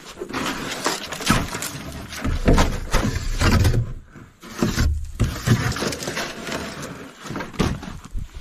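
Irregular rustling and bumping of bedding and camping gear being shifted about, with heavy low thumps. It stops briefly twice near the middle.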